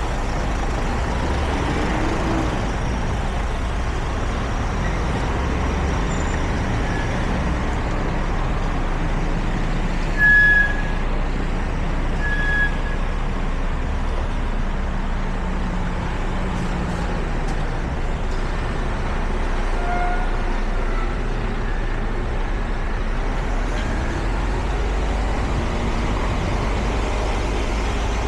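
City street traffic: a steady rumble of passing cars, buses and trucks. Two short high-pitched chirps stand out, about ten and twelve seconds in.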